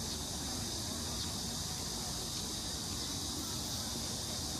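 Steady high buzz of summer cicadas over a low rumble of street traffic.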